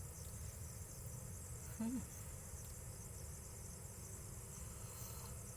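Night chorus of crickets and other insects, a steady high-pitched trilling, over a low rumble. A brief low vocal sound about two seconds in.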